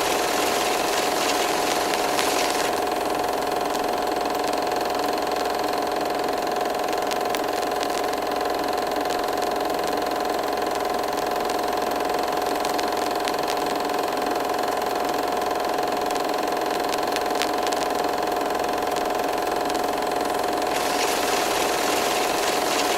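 An engine running steadily at constant speed with a steady whine, with a stretch of added hiss near the start and again near the end.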